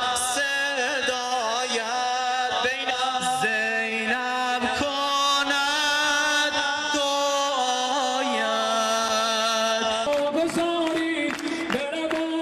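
A voice sings a celebratory religious chant over musical accompaniment, in long, wavering held notes. About ten seconds in it switches to another song, with hands clapping along in rhythm.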